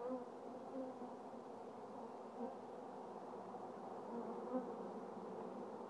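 Many Italian honeybees buzzing, a steady hum of wings with a few brief louder swells.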